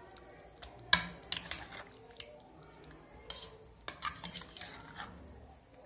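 A spoon stirring chaap pieces through a wet curd and spice marinade in a bowl, with irregular clinks and scrapes against the bowl; the sharpest clink comes about a second in.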